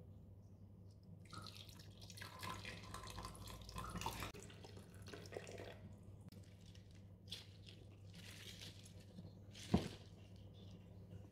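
Water poured from a glass measuring jug into a glass vase of tulip stems, splashing for about three seconds starting a second in. Afterwards faint rustling of the stems and one sharp knock near the end.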